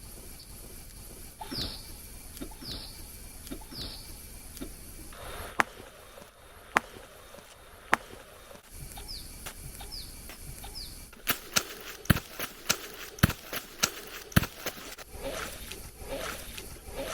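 Outdoor recording with a short, high, falling call given three times about a second apart, then three sharp knocks about a second apart, then the three calls again. A rapid run of sharp clicks and knocks follows for the last several seconds. The uploader presents these as possible tree knocks.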